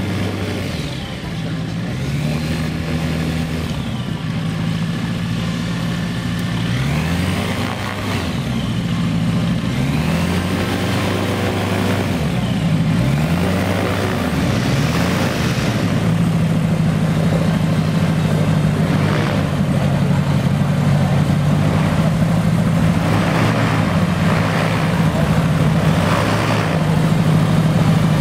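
Gyrocopter piston engine and pusher propeller running on the ground. The engine speed rises and falls several times in the first half, then holds steady.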